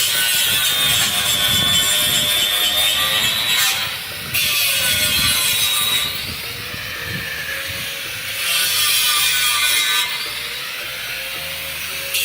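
Power tool cutting into the heavy steel plate of an outdoor wood furnace. It makes a high whine over a harsh hiss, in loud spells broken by quieter stretches about four, six and ten seconds in.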